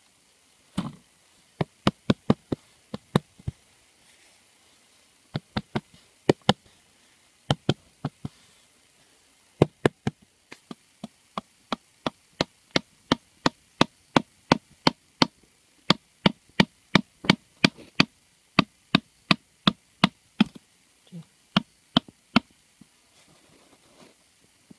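A long series of sharp knocks or taps. They come in scattered clusters at first, then in a steady run of about two to three a second from about ten seconds in. They stop a little before the end, leaving only faint soft noises.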